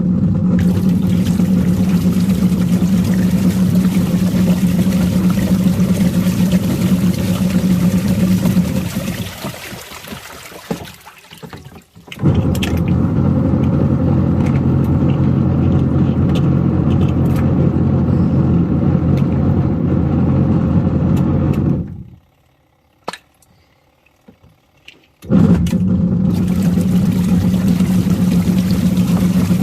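Washing machine motor running with Lego toys churning in water: a steady hum that winds down after about nine seconds, starts up again a few seconds later, cuts off suddenly, then starts once more near the end.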